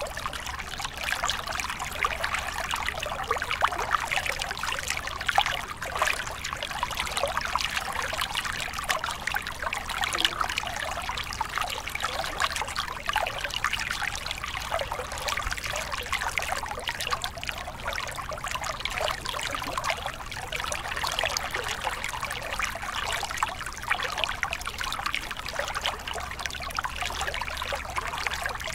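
A small mountain stream splashing down a short cascade over rocks into a pool: steady trickling and splashing water, dense with small splashes, with no change in level.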